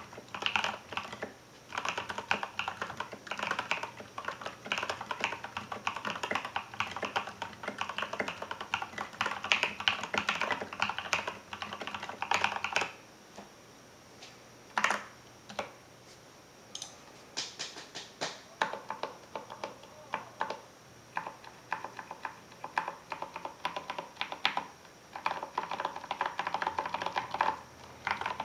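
Typing on a Filco Majestouch 2 mechanical keyboard with Krytox-lubed Cherry MX Ergo Clear switches and SA-profile doubleshot ABS keycaps. The typing is fast and steady, thins to a few scattered single keystrokes about halfway through, then picks up again.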